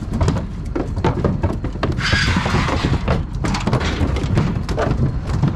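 Calves' hooves clattering and knocking on the floor of a livestock trailer as the calves are unloaded: a busy run of many irregular knocks.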